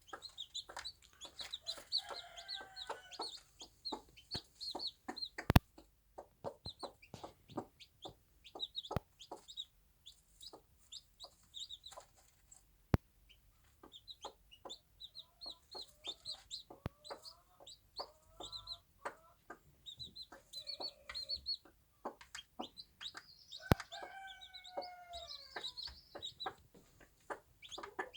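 Bantam hen clucking to her chicks, with the chicks' high, rapid peeping going on throughout. Many short taps and clicks run under the calls, three of them sharp and loud.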